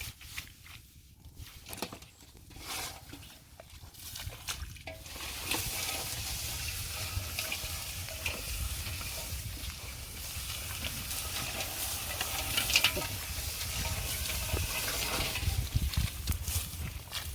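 Water splashing and sloshing in shallow water. Scattered taps at first, then steady and louder from about five seconds in.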